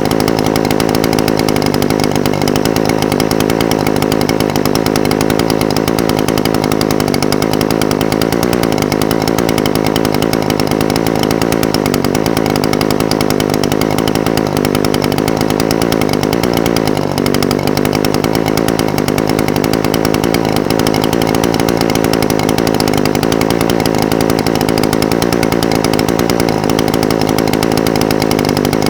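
Echo SRM-420TES brush cutter's two-stroke engine idling steadily, with a slight wavering in its note.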